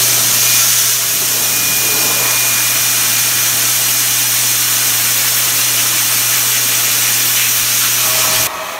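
Pet force dryer blowing at full power: a very loud, steady rush of air over a motor hum, blasting the excess water out of a freshly bathed terrier's coat. Near the end it drops abruptly to a lower, quieter level.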